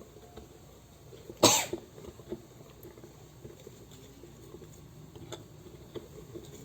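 Faint scraping and light clicks of a spoon stirring cake batter in a bowl, with one short, loud cough about a second and a half in.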